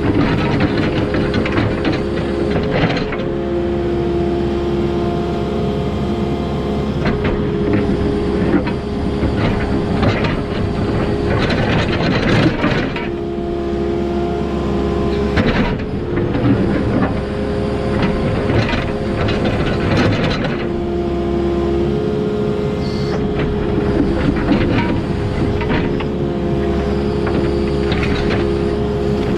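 Diesel excavator working: a steady engine drone with hydraulic whine tones that shift pitch every few seconds, and rougher, noisier stretches as the machine loads up and eases off.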